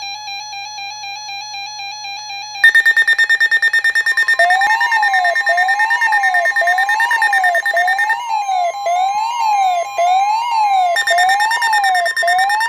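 Emergency Alert System alert tones for a severe thunderstorm warning, played through a speaker: a steady wavering electronic tone, then about two and a half seconds in a louder, rapidly pulsing high beep starts, joined shortly after by a warbling tone that sweeps up and down over and over.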